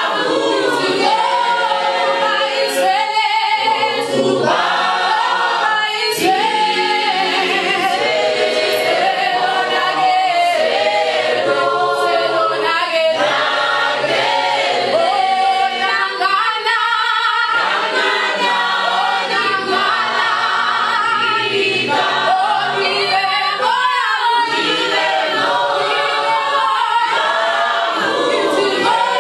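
Youth choir of young men and women singing a cappella in parts, one continuous song with no instruments.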